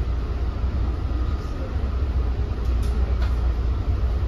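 Inside an NJ Transit Multilevel rail coach running at speed: a steady low rumble of wheels on track, with a few faint clicks about three seconds in.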